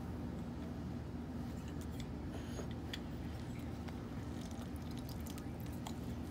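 Lemon half being squeezed in a hand-held hinged citrus press over a glass bowl: faint squishing and juice dripping, with a few light clicks, over a steady low hum.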